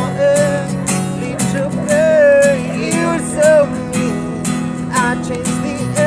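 A man singing over a strummed acoustic guitar, his voice held and bending between notes over steady strummed chords.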